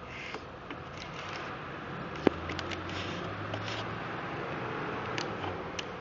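Scraper tool rubbing aluminium foil tape down along an insulated panel seam to seal it: soft scraping and crinkling with scattered small ticks, and one sharp click about two seconds in.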